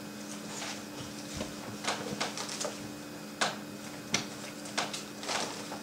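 Indoor room tone: a steady low hum with a scattering of about six small clicks and knocks.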